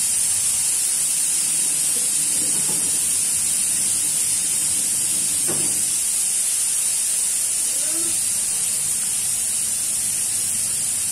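Steady high-pitched hiss that does not change, with a few faint, brief soft sounds under it.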